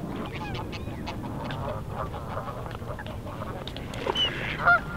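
Waterfowl calling across the reservoir: many short calls scattered through, with two louder calls about four and four and a half seconds in.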